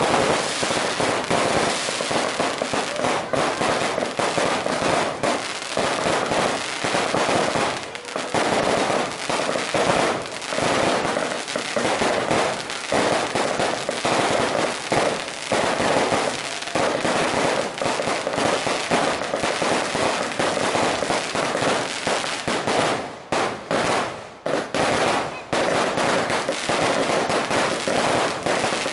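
Fireworks going off in a dense, continuous barrage of bangs and crackling, with brief lulls about 23 and 24 seconds in.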